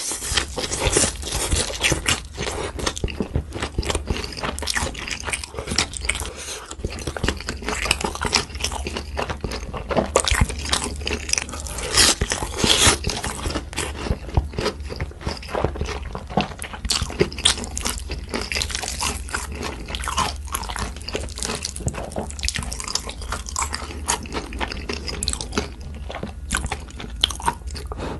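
Crunchy food being bitten and chewed, a dense, irregular run of crunches and crackles.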